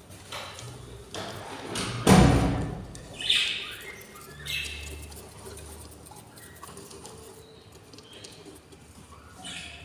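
Budgies in a nest: a loud thump about two seconds in, followed by two short chirps, with fainter scratching and rustling.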